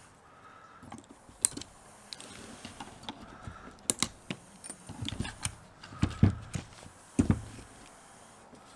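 Irregular sharp clicks, taps and knocks of tools and parts being handled while a lithium-ion power-tool battery pack is taken apart, busier and heavier in the second half.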